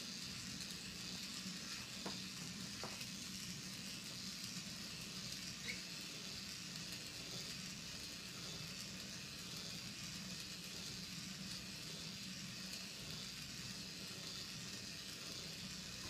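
Steady background hiss with a low hum underneath, broken by a few faint ticks.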